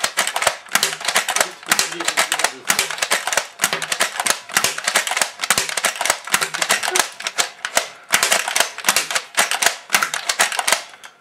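Toy foam-dart machine gun firing in rapid succession: a fast, uneven clatter of clicks from the blaster's mechanism and darts striking a glass tank, with a short break about eight seconds in.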